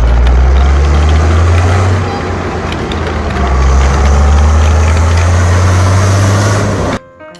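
A motor vehicle engine running with a loud, steady low hum, a little softer for a second or so partway through, cut off abruptly near the end.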